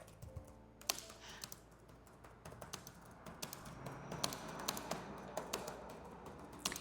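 Typing on a computer keyboard: a run of faint, irregular key clicks while the patient's answers are taken down.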